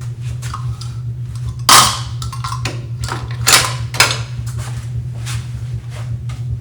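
Hand tools being set into a wooden toolbox: irregular clunks of wood and clinks of metal, the loudest knock about two seconds in, over a steady low hum.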